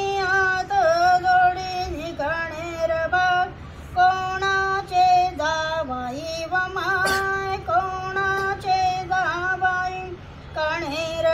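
Female voice singing a devotional bhajan melody with long held, wavering notes. A single sharp click comes about seven seconds in.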